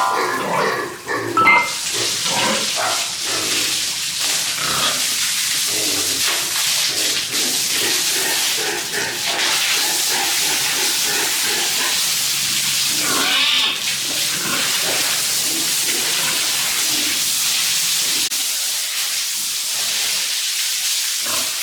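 Pigs grunting over and over, with a few higher squeals, over a steady hiss.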